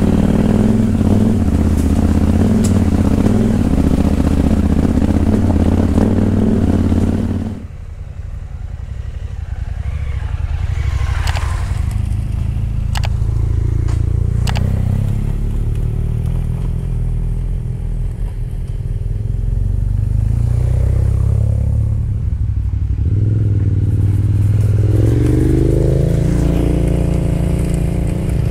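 Adventure motorcycle engine running under way. About seven and a half seconds in the engine note drops suddenly to a lower, quieter run. A few sharp clicks come about halfway through, and the revs rise again near the end.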